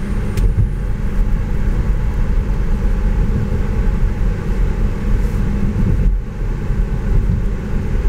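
Steady low tyre and road rumble heard inside the cabin of a 2021 Tesla Model 3 electric car driving along a street.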